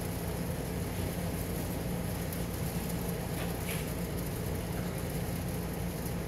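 A steady low hum over a constant hiss, with a brief faint higher sound about three and a half seconds in.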